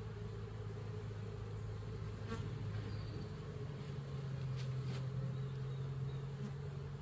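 Honeybees buzzing in a steady hum around an opened hive with its frames out, the hum's pitch lifting slightly about halfway through. A few faint ticks sound over it.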